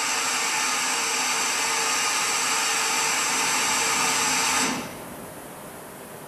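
A loud motor-driven machine runs steadily with a hiss and a whine, then cuts off suddenly about four and a half seconds in.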